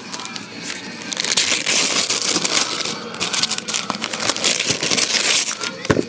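Paper being crumpled and torn as a gift box is opened: a dense crinkling and ripping that gets much louder about a second in.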